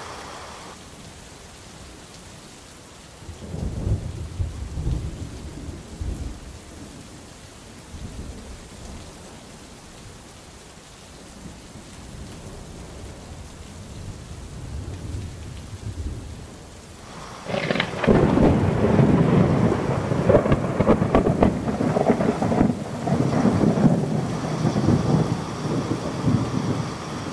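Thunderstorm: steady rain with a low rumble of thunder a few seconds in, then a loud, long peal of thunder starting a little past halfway that keeps rumbling.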